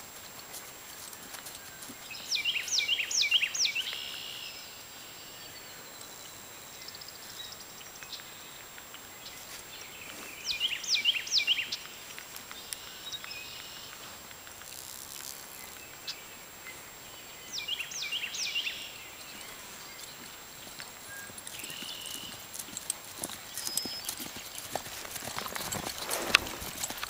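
A bird sings a short phrase of quick, high, rising-and-falling whistles three times, about seven seconds apart. Near the end, hoofbeats of a ridden horse on grass grow louder as it comes past close by.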